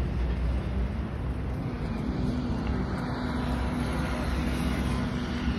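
Steady road-traffic rumble and noise, with a low steady hum coming in about two seconds in.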